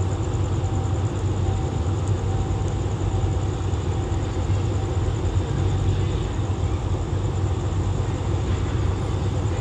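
Low, steady rumble of diesel passenger trains at a station platform: a train standing with its engine running while another approaches slowly. A high, fast-pulsing trill sounds over the rumble.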